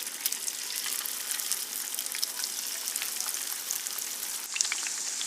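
Marinated fish pieces shallow-frying in hot oil in a pan: a steady, dense crackle and sizzle of spattering oil. The texture shifts abruptly near the end.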